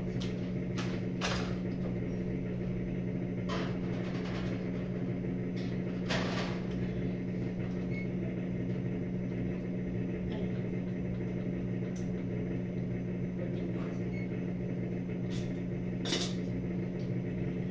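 A steady low machine hum, with a few scattered knocks and clatters from handling things at the kitchen oven and stove. The sharpest knocks come about six seconds in and again near the end.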